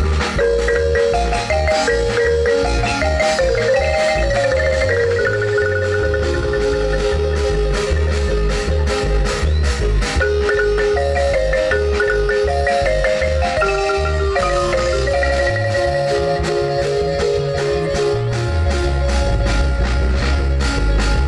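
Guatemalan marimba ensemble playing a ranchera, the mallet melody moving over a steady, evenly pulsing bass and percussion beat.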